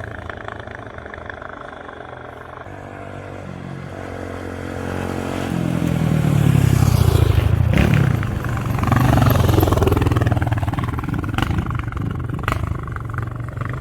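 Yamaha XT 600 single-cylinder four-stroke motorcycle engine running. It grows louder over the first half, is loudest about halfway through, then dips and rises again as the revs change.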